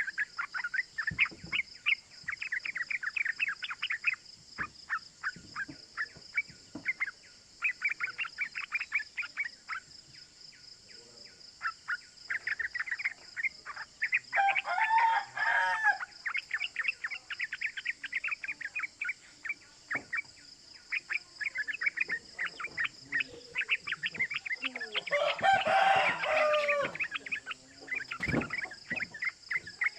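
Yellow-vented bulbul (trucukan) calling in long runs of quick, chattering 'cuk cuk' notes. A rooster crows twice, about halfway through and again near the end, over a steady high hiss.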